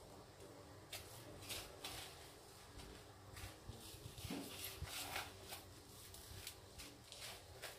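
Faint, irregular rustling and crunching of dry breadcrumbs as a rolled chicken breast is pressed and turned in them by hand, starting about a second in.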